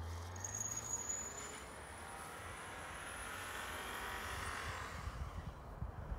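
Subaru Impreza's flat-four boxer engine revving under load while the car slides through snow. It is loud at first and fades about a second in as the car moves away, then builds again near the end as the car swings back.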